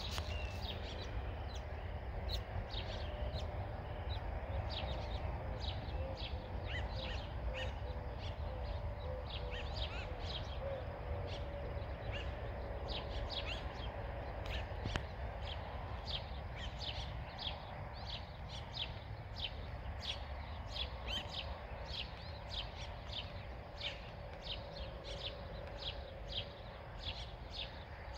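Dawn chorus of small birds: many short, high chirps several times a second throughout, over a steady low rumble.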